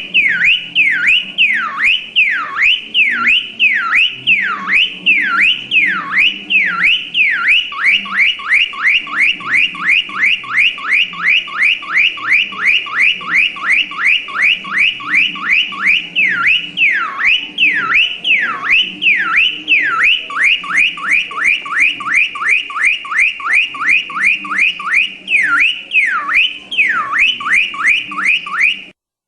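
Electronic car alarm siren cycling through its tones: slow falling whoops about once a second, alternating with a fast warble of about four sweeps a second. It cuts off abruptly near the end.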